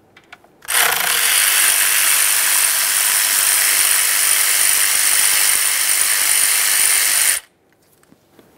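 A ratchet and socket spinning out an 8 mm intake manifold mounting bolt: a continuous run of fast ratcheting that starts just under a second in, holds steady for about six and a half seconds, and stops abruptly.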